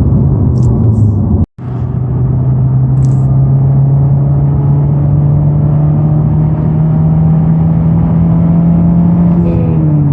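Honda Civic Type R running with a steady, even-pitched buzz, the noise it makes with the clutch pedal depressed. The sound cuts out abruptly for a moment about a second and a half in, then carries on unchanged.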